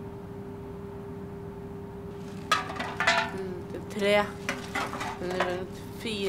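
Empty aluminium drink cans clinking and rattling against one another, a run of sharp metallic clinks starting about two and a half seconds in, over a steady hum.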